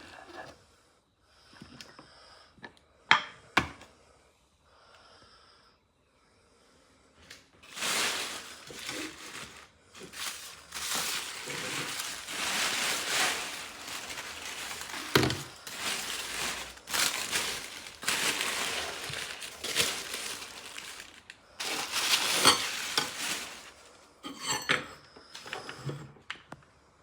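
Kitchen cooking noise: a sizzling hiss that swells and fades for about sixteen seconds, with utensils clinking against a pan. A couple of sharp knocks come about three seconds in.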